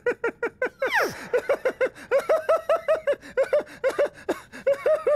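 A man laughing in rapid, rhythmic 'ha-ha' bursts, about five a second, that slide into exaggerated comic sobbing, with one falling swoop about a second in.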